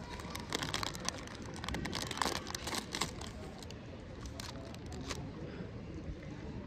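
KitKat's plastic foil wrapper crinkling and rustling in the hands as a chocolate finger is pulled out. It is a dense run of sharp crackles that stops about five seconds in.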